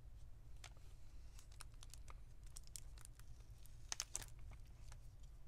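Faint scattered clicks and crinkles as a laptop battery is pried up off its double-sided adhesive tape, with a louder burst of crackling about four seconds in.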